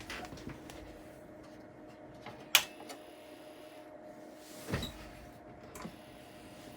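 A sharp click of a power switch being flipped about two and a half seconds in, followed a couple of seconds later by a softer low thump, over a faint steady hum.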